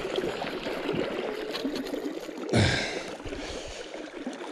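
Shallow river water flowing and rippling over rocks, with a brief louder burst of noise about two and a half seconds in.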